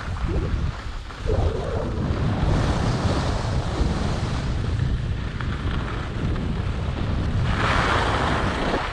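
Wind buffeting the microphone of a camera worn by a downhill skier, a steady low rumble, with skis hissing over groomed snow. Near the end the snow hiss swells into a louder scrape of the ski edges.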